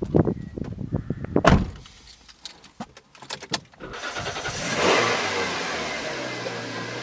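Knocks and shuffling of someone getting into a car, with the car door slammed shut about a second and a half in. About four seconds in, the car's engine starts, flares up briefly and settles into a steady idle.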